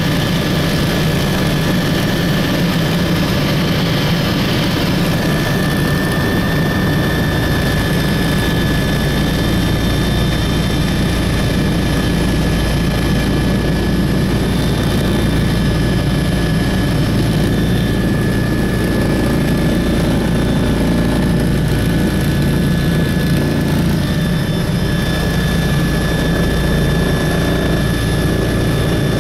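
Helicopter in flight heard from inside the cabin: a steady, loud drone of rotor and engine with a constant high whine running over it.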